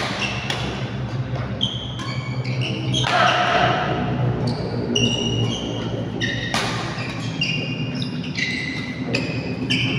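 Badminton rally: a shuttlecock struck hard by rackets several times, sharp cracks a few seconds apart, with shoes squeaking in short high chirps on the court mat between shots. A steady low hum runs underneath.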